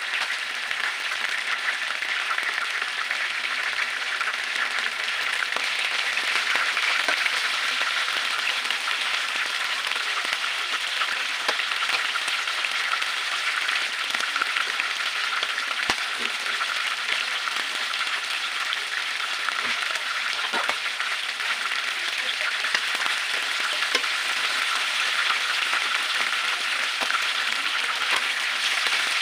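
Squid pieces frying in hot oil in a pan: a steady sizzle with scattered small pops.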